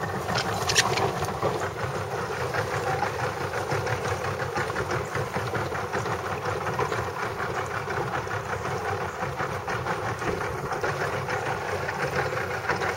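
Small boat's motor running steadily, with an even, fast pulse.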